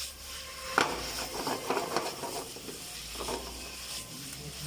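Chicken in a cornflour-thickened chilli sauce sizzling in a pan while being stirred, a spatula scraping and knocking against the pan now and then; one sharp knock about a second in is the loudest.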